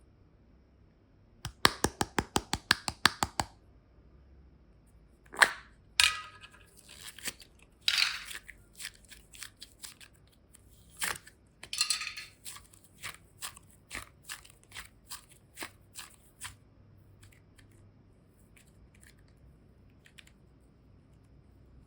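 A quick run of sharp clicks about two seconds in, then scattered crisp snaps and crackles that stop near the end, typical of hands working small plastic or craft items.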